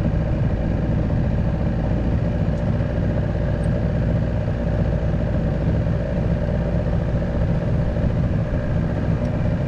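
The boat's outboard motor idling steadily, under a low rumble of wind on the microphone.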